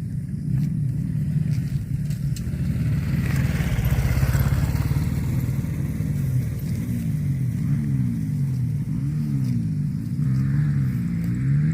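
A motor engine running without a break, its pitch wavering up and down repeatedly in the second half.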